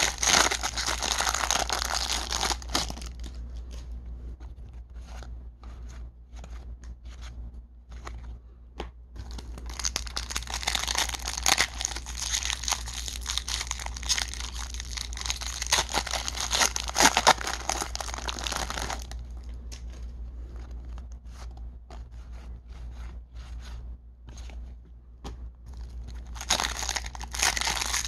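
Foil baseball-card wrappers being torn open and crinkled in the hands, in two long stretches of crinkling, with quieter spells of scattered light clicks between them.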